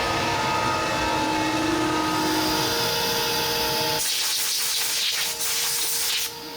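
A machine runs with a steady hum and a few held tones. About four seconds in, a loud hiss of air takes over for about two seconds and then cuts off suddenly.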